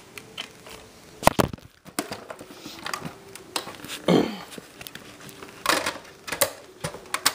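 Plastic DVD case and disc being handled: scattered clicks and rustles, the sharpest click about a second in, and a short falling sound about four seconds in.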